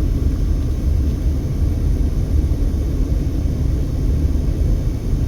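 Steady low rumble of a car driving slowly, heard from inside the cabin: road and engine noise.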